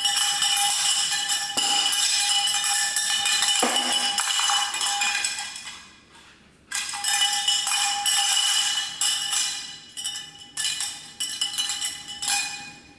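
Small cowbell toy clanking and ringing without a break as a Labrador puppy runs with it in her mouth and shakes it. It goes quiet for a moment about six seconds in, starts again, then comes in shorter bursts near the end.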